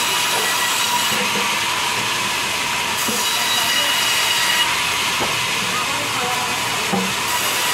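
Large vertical sawmill band saw running steadily while its blade rips lengthwise through a small green log. The sound is a continuous hiss with a thin, steady high whine.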